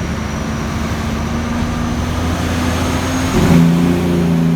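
Kenworth T800 truck's diesel engine pulling under way, its pitch slowly rising, then about three and a half seconds in the revs drop to a steady lower note at a gear change.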